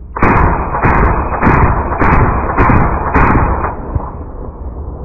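Colt M16A1 rifle in 5.56 mm firing six loud shots at a steady pace, about two a second, the sound trailing off after the last one.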